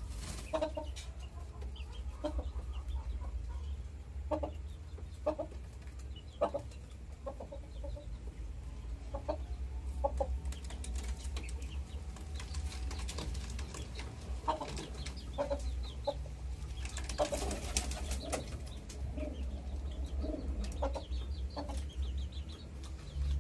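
Birds calling in a backyard pigeon loft: short clucking calls scattered through, irregularly, with a steady low rumble underneath and a brief stretch of hissy noise about two-thirds of the way through.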